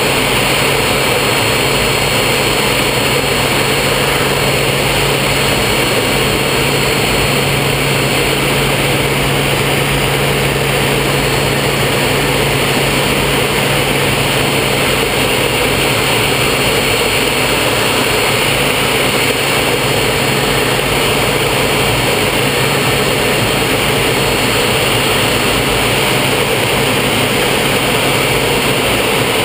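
Folland Gnat jet in flight, heard from inside the cockpit: its Bristol Siddeley Orpheus turbojet and the rushing airflow make a loud, steady noise with a low hum underneath.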